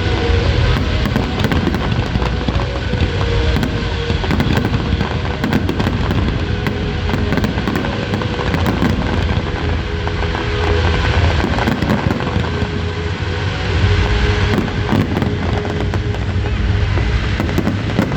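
Fireworks display: a dense, continuous barrage of bangs and crackles with no break.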